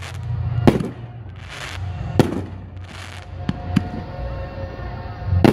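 Fireworks shells bursting: about five sharp bangs spaced one to two seconds apart, with short bursts of hiss in between.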